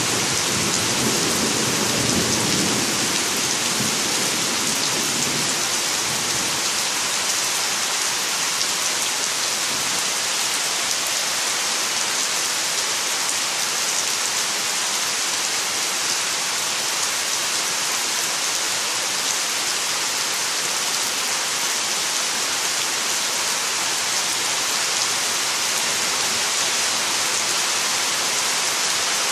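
Heavy summer rain falling steadily on trees, leaves and ground, a continuous hiss. The last of a low thunder rumble dies away over the first few seconds.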